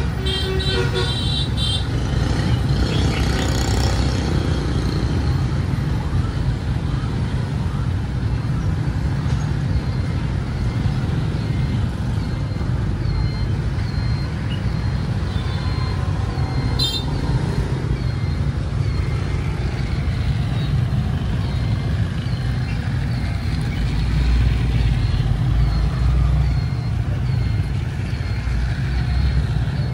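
Battery-powered plastic toy train running around a plastic oval track, its small motor and wheels clicking along, over a steady low rumble. A short series of high beeps sounds in the first second or so.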